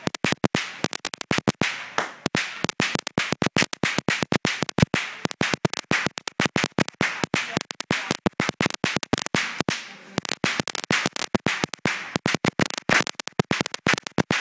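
A hanging string of firecrackers going off in a rapid, irregular crackle of sharp bangs, many a second, without a break.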